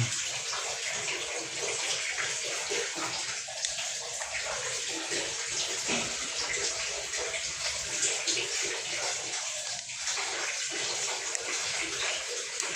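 Water running and splashing steadily, as a washing machine's drain-valve parts are rinsed clean under it.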